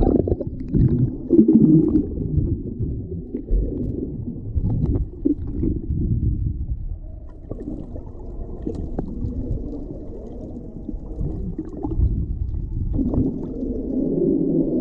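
Muffled underwater sound from a camera held below the sea surface: a low, steady rumble and gurgle of water moving around the camera, with a few faint clicks.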